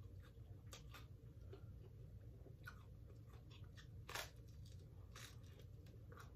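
Faint sounds of a person eating Detroit-style pepperoni pizza: scattered small chewing clicks, with one louder crunch as a bite is taken about four seconds in.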